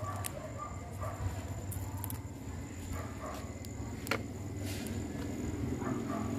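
A low engine rumble, as of a vehicle passing, building toward the end, under a steady high-pitched insect call. A few sharp clicks, the sharpest about four seconds in.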